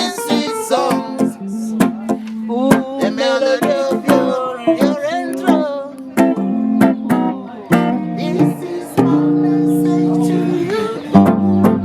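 Band music: strummed guitar with a melody voice over it, settling on a held chord about nine seconds in.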